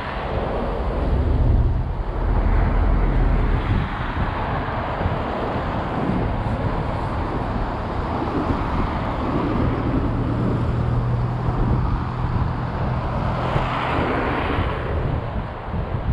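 Road traffic: cars driving past with a steady rush of tyres and engines, and a low engine hum holding for several seconds in the middle.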